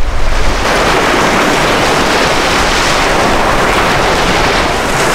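Small sea waves breaking and washing up on a sandy beach: a steady rush of surf.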